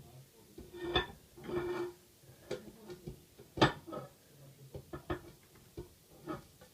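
A plate and dishes being handled in a kitchen: a series of separate sharp clinks and knocks, the loudest a little past halfway.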